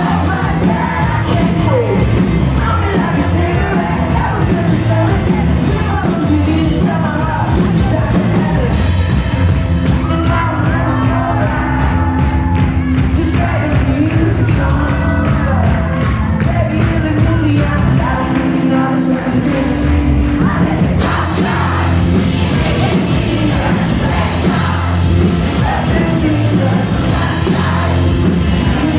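A rock band playing live with a singer, and a concert crowd yelling along.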